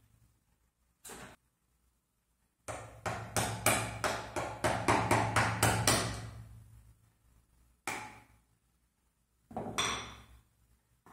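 Mallet striking a wood chisel as it chops into a wooden strip. A single blow comes about a second in, then a quick run of about a dozen blows at roughly four a second, then a few scattered blows near the end.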